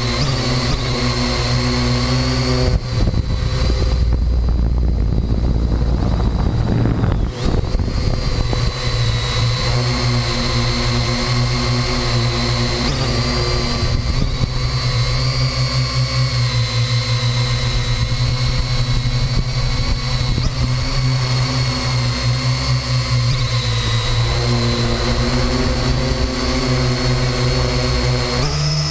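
Parrot AR.Drone 2.0 quadcopter's electric motors and propellers running steadily while hovering, heard up close from the camera mounted on the drone. A few seconds in there is a stretch of wind rumble, and the motor tones shift slightly around 7 to 8 seconds in.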